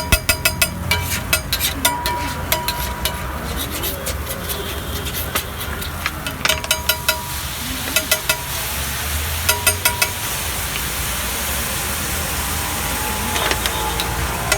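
Rapid tapping of a cooking utensil in several short bursts of quick strokes, over steady traffic noise.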